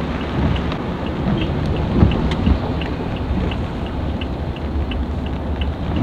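Rain on a moving car heard from inside the cabin, over a steady low rumble of engine and wet-road noise, with a light, regular ticking about three times a second.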